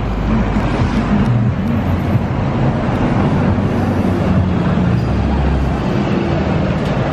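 Busy city street traffic: car and bus engines running with a steady low hum.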